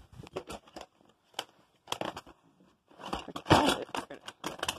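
A cardboard box being cut open with a razor blade and its packaging pulled apart: short scraping and crackling strokes, becoming a dense run of crackle about three seconds in.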